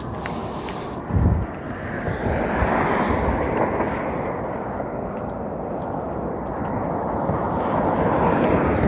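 Wind rushing over the microphone and tyre noise from a mountain bike riding down a dirt trail, with a low thump about a second in.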